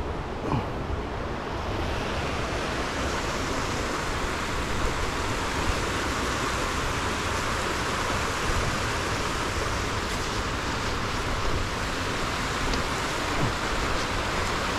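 Waterfall rushing: the steady, even wash of water pouring over Buttermilk Falls, growing a little brighter about two seconds in.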